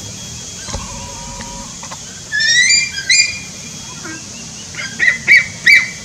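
High-pitched whistled bird calls: a loud rising call a little past two seconds in, then three short, sharp calls near the end.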